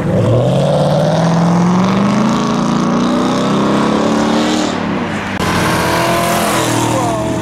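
A car engine revving hard as the car accelerates away, rising in pitch, easing briefly about five seconds in and then pulling strongly again.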